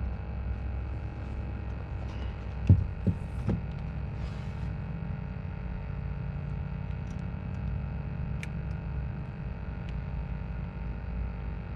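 A boat's electric motor humming steadily with a low rumble, with three short loud knocks about three seconds in.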